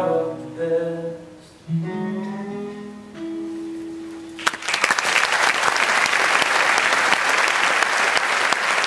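Guitars play the closing notes of a song, one note held near the end. About four and a half seconds in, the audience starts applauding and keeps clapping.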